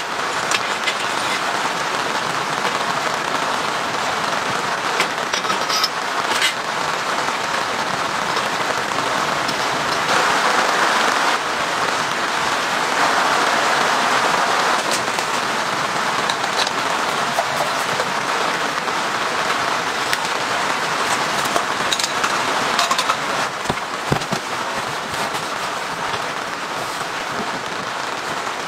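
Steady heavy rain falling, an even dense hiss, with a few light clicks and knocks.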